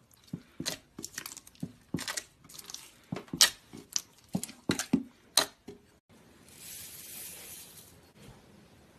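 Slime being squeezed and poked by hand, giving a run of sharp, wet pops and clicks, two or three a second. About six seconds in they stop and a softer hissing rustle follows.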